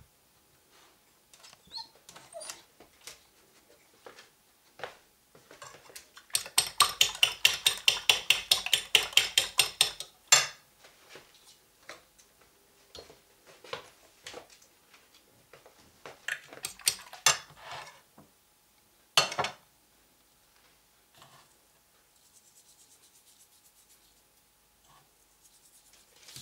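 A fork beating eggs against a porcelain bowl: a rapid, even run of clinking strokes, about eight a second, lasting about four seconds. Scattered single clinks and knocks of dishes and cutlery come before and after it.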